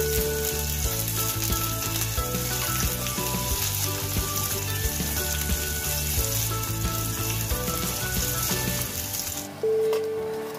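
Sliced red onion sizzling in hot cooking oil in a nonstick wok, with the clicks and scrapes of a slotted turner stirring it. The sizzling cuts off suddenly near the end.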